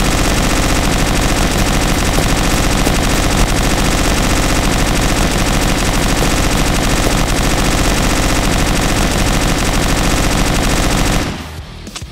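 Tommy gun sound effect firing one long, unbroken burst of rapid automatic shots that stops suddenly about a second before the end.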